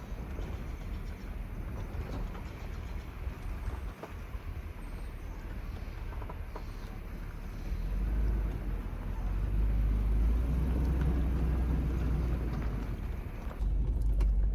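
A vehicle driving, a steady low rumble with road noise that grows louder about eight seconds in.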